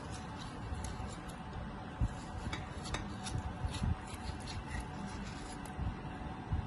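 A knife cutting watermelon into chunks over a bowl: soft slicing through the flesh with many small scattered clicks and a few dull knocks.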